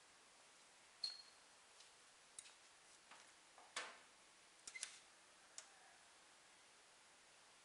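Near silence, broken by about five faint, sharp clicks and taps in the first six seconds; the strongest, a little before the middle, is slightly longer.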